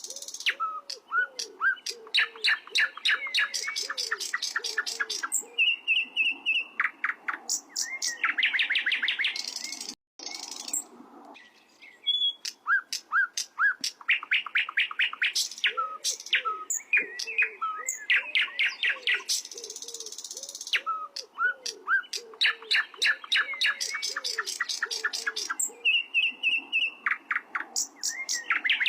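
Sikatan londo flycatcher singing loud, fast runs of repeated high whistled and trilled notes, phrase after phrase with short pauses. A fainter, lower repeated chirp runs underneath, and the song drops out briefly about ten seconds in.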